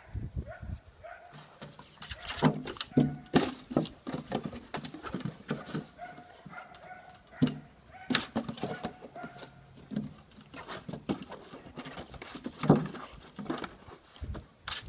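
A young Lithuanian Hound chewing and batting a plastic canister across the grass: irregular knocks and crackles of the plastic as it is bitten and pushed, the sharpest near the end.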